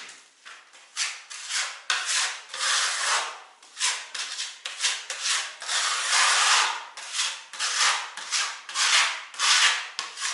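Putty knife scraping filler across wall seams in repeated strokes, about one or two a second.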